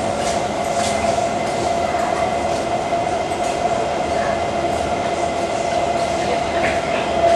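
SMRT C151 Kawasaki electric train heard from inside the car while running: steady rumble of wheels on rail with a constant-pitch humming tone, typical of its Mitsubishi GTO chopper propulsion, and a few short clicks from the wheels over the track.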